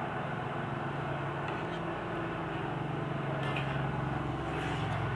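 A steady low engine hum, a little louder three to five seconds in, with a few faint clinks of metal spoons and forks against cast-iron serving pans.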